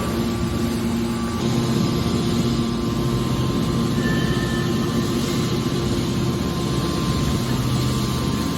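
Hydraulic scrap car baler running with a steady hum of its motor and pump and a rough mechanical rumble underneath.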